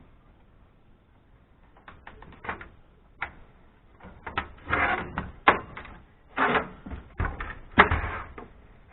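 Irregular clicks, knocks and clattering of metal parts and screws being handled while a scrap amplifier is taken apart by hand, with a few louder rattling bursts in the second half.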